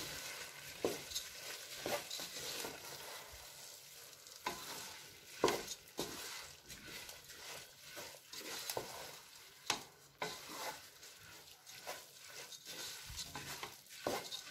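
Wooden spatula stirring and turning raw basmati rice through a spiced bean mixture in a pot, sautéing it: irregular scrapes and clicks of the spatula against the pan over a faint sizzle.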